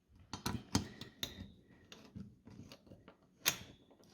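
Light clicks and taps of small computer parts and tools being handled, with a sharper click about three and a half seconds in.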